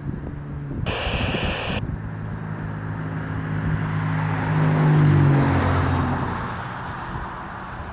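A vehicle engine passing, swelling to its loudest about five seconds in and dropping slightly in pitch as it fades. About a second in, a short burst of radio static from the scanner.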